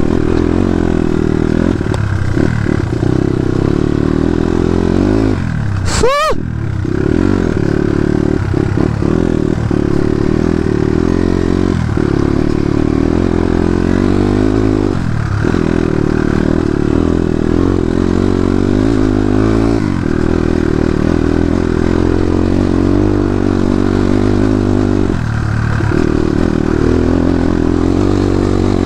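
Dirt bike engine running under way, its pitch wavering up and down with the throttle and dipping briefly every few seconds as the throttle is let off. About six seconds in, a short, sharp sliding tone cuts across it.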